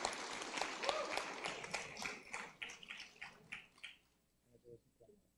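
Audience applause, thinning to a few scattered claps and dying out about four seconds in.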